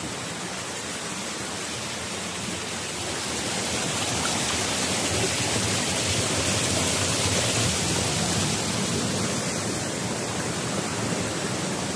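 A shallow, rocky stream rushing over stones, a steady hiss of water that grows a little louder through the middle and eases near the end.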